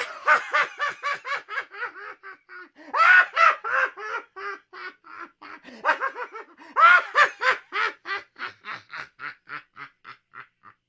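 A man's crazy laugh: three bouts of rapid 'ha-ha' pulses, about five a second, each starting loud and trailing off into fainter ones.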